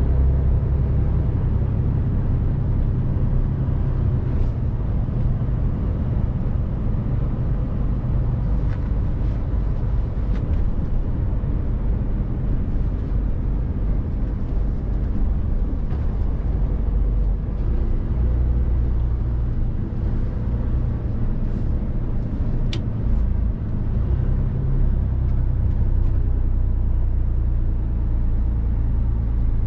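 Mercedes-Benz Actros 1851 truck's straight-six diesel engine and road noise heard from inside the cab while driving: a steady low rumble with a few faint clicks.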